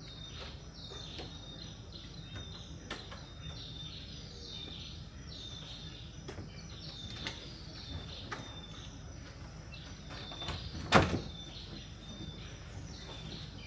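Rainforest ambience: a chirping animal call repeated about once a second over a steady high-pitched insect whine and a low rumble. A single sharp knock sounds about eleven seconds in.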